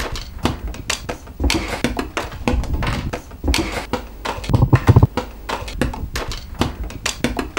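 Playing cards being flicked and slapped down one after another onto a kitchen benchtop: a quick, uneven run of sharp taps, with a few heavier thumps about halfway through.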